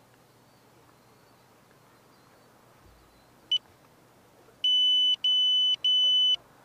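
Electronic piezo beeper sounding close to the microphone, a single high steady tone: one short beep, then about a second later three longer beeps of about half a second each in quick succession.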